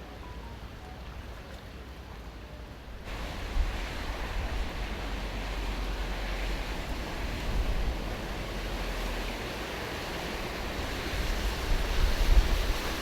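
A steady rush of storm water and wind, with wind rumbling on the microphone. It jumps louder and brighter about three seconds in.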